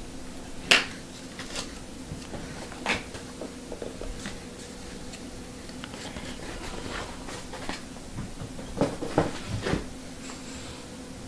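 Hands handling trading cards and supplies on a table: scattered clicks and taps, a sharp click about a second in and a quick run of knocks near the end, over a steady low hum.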